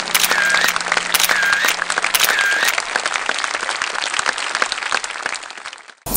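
A crowd applauding, dense clapping throughout, with three short whistles about a second apart in the first few seconds; it cuts off abruptly near the end.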